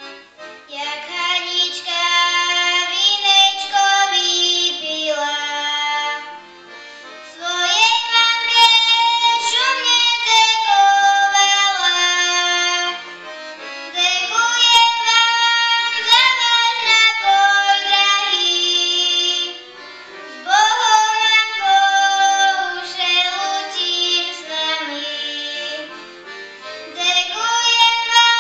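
A girl singing solo to piano accordion accompaniment. She sings in phrases of several seconds, with short breaks between them.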